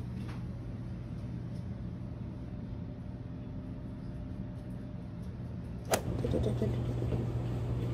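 A steady low hum runs throughout. About six seconds in there is a single sharp click, after which the sound becomes louder and busier.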